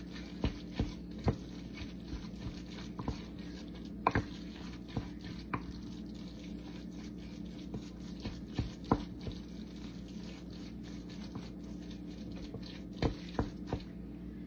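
Wooden spoon mashing and stirring a wet mashed-sardine mixture in a glass bowl: irregular soft squishes and clicks of the spoon against the glass, with a few louder knocks, over a steady low hum.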